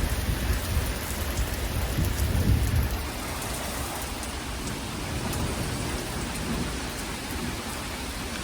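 Torrential thunderstorm rain pouring steadily. Strong wind gusts buffet the microphone as a low rumble through the first three seconds, loudest about two and a half seconds in.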